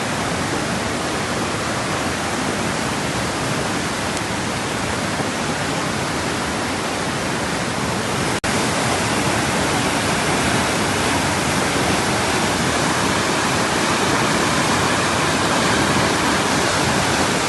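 Fast-flowing river rushing, a loud, steady wash of water noise. It breaks off for an instant about eight seconds in and comes back a little louder.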